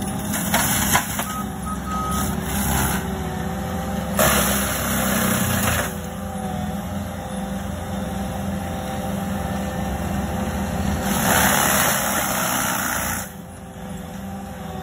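ASV RT-135 compact track loader running a forestry mulcher, with the diesel engine and the spinning cutter drum making a steady hum. The noise swells louder twice as the drum's teeth chew into brush and a small tree, then drops off near the end.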